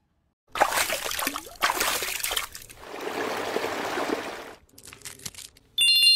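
Wet, crackly, squishy sounds of skincare product being worked on skin, starting about half a second in and coming in bursts. A bright chime rings out near the end.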